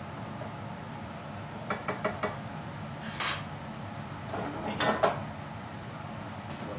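Stainless steel sauté pan of pasta being shaken and tossed on a gas stove grate: a few quick clinks about two seconds in, a brief scrape, then louder clattering of the pan, loudest about five seconds in.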